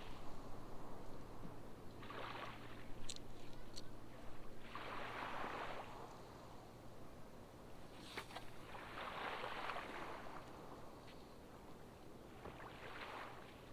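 Small waves washing onto the beach in a calm sea, four gentle swells of surf a few seconds apart, with a few faint clicks.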